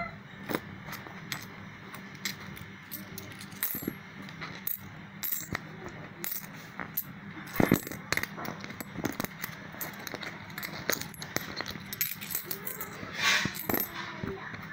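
Metal coins being handled, giving irregular light clicks and clinks, several a second at times. A brief scraping noise comes near the end.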